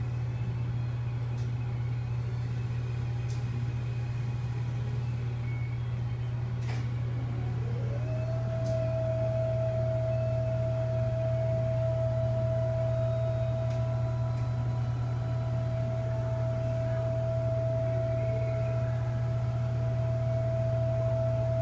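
Radiation-therapy linear accelerator running with a steady low hum and a few faint clicks. About eight seconds in, a high whine slides up in pitch and then holds steady.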